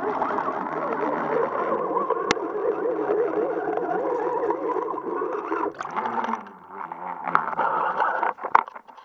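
Muffled, warbling rush of water past an underwater action camera's housing as the fishing line is reeled up. About six seconds in the camera breaks the surface, and the sound thins into splashes and a few sharp knocks against the housing.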